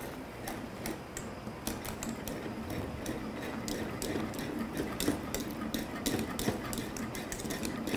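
Wire whisk beating hot milk in a stainless steel pot, its wires clicking and scraping against the pot in a quick, irregular run of taps, dissolving sugar in the milk.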